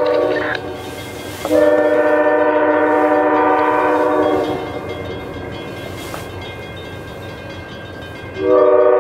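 Locomotive multi-chime air horn blowing as the train approaches. A blast fades out at the start, a long steady blast of about three seconds begins a second and a half in, and another blast starts near the end. A low rumble runs underneath.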